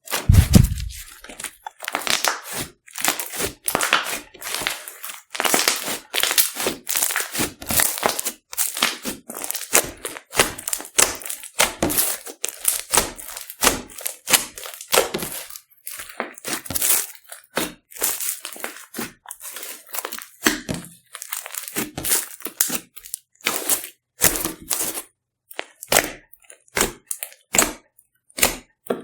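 Slime being squeezed and poked by hand: a fast, irregular run of wet crackles and pops, with a low thud at the very start.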